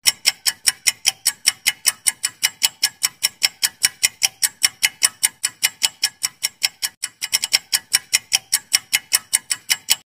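Clock-ticking sound effect for a quiz countdown timer: fast, even ticks, about five a second, with a brief stumble in the rhythm about seven seconds in. The ticking stops near the end, as the countdown runs out.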